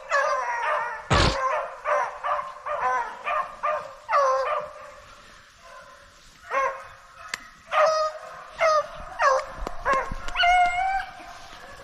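Rabbit dogs baying and yelping in quick, repeated calls while running a rabbit, with a longer drawn-out bay near the end. A single sharp knock about a second in.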